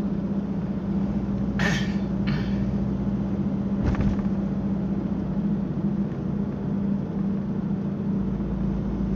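A car driving on an elevated expressway, heard from inside: a steady engine and road hum, with two brief knocks or thumps about two and four seconds in.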